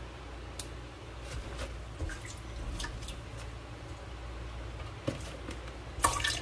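Small clicks and rustles of leafy greens being handled over a plastic tub, then about six seconds in a short splash as water is poured out of the tub into a stainless steel sink.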